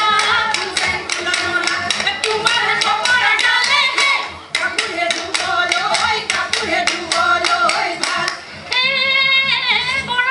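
Women singing a Jeng Bihu folk song together, with steady rhythmic hand-clapping. The clapping stops near the end while a single wavering melodic line carries on.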